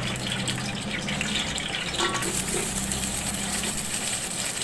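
Hot oil sizzling steadily in a pot with bay leaves and cloves. The hiss turns brighter about two seconds in, as sliced onions go into the oil.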